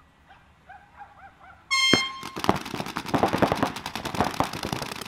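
A short air-horn blast about a second and a half in, the start signal for a paintball point, followed at once by paintball markers firing in rapid, overlapping shots.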